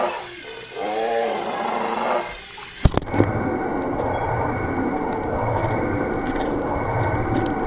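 Toy dinosaur roaring: a pitched, arching roar that ends about two seconds in. A sharp click follows about three seconds in, then a steady low rumbling noise.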